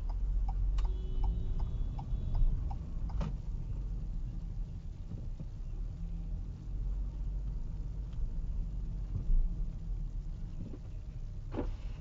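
Pickup truck driving, heard from inside the cab: a steady low road and engine rumble, with a turn signal clicking about twice a second for the first few seconds.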